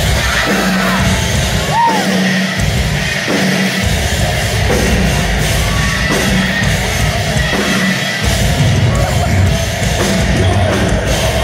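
Metalcore band playing live, heard from within the crowd: heavy distorted guitars and drums under screamed vocals. The deep low end stops for a moment a few times: about two seconds in, near four seconds and about eight seconds in.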